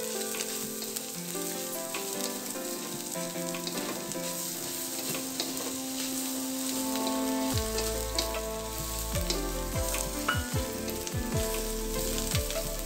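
Shredded cabbage and egg sizzling in hot oil in a wok while a wooden spatula stirs and tosses it, with scattered clicks of the spatula against the pan.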